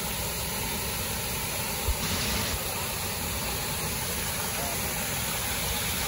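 Waterfall: a steady rush of falling water, with one brief low bump about two seconds in.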